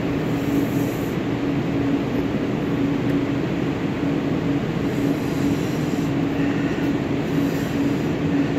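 Steady mechanical drone with a constant low hum tone under an even rushing noise, unchanging throughout.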